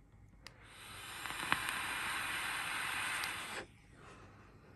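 A draw on a Hellvape Fat Rabbit RTA vape atomizer with its bottom airflow wide open: a click about half a second in, then about three seconds of steady airy hiss of air and vapour pulled through the atomizer, stopping sharply.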